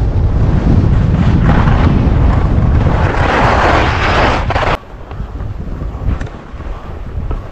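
Wind buffeting an action camera's microphone during a fast ski descent, with the hiss of skis sliding on packed snow, loudest between about three and four and a half seconds in. A little before five seconds in it drops suddenly to a quieter rush of wind and ski noise.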